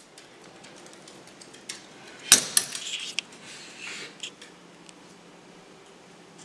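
Metal pet gate clanking open, with one loud clank about two seconds in and a quick run of smaller rattles and clicks after it. Light clicks follow from a dog's claws on a tile floor.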